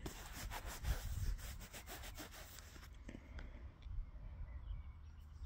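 Fingers rubbing and scraping soil off a small freshly dug copper coin: a quick run of dry scrapes for about three seconds, then a few scattered ones.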